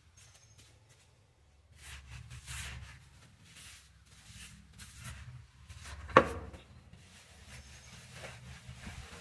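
A trowel and a hand float are being scraped and rubbed over wet cement plaster in a series of short strokes. A single sharp knock comes about six seconds in.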